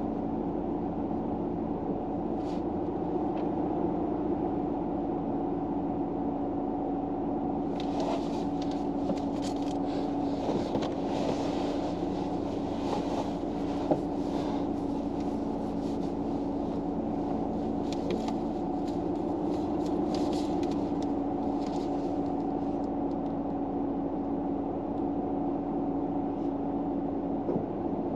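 Steady low mechanical hum inside a car, with constant tones like an idling engine or running fan. Bouts of light rustling and crackling come from about eight seconds in until about twenty-two seconds in.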